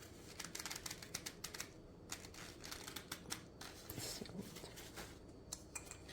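Faint, irregular small clicks and light taps of kitchen items being handled, scattered throughout.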